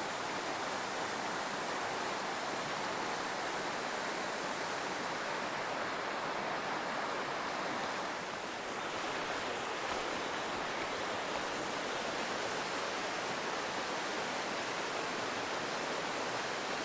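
A river's flowing water rushing in a steady, unbroken hiss.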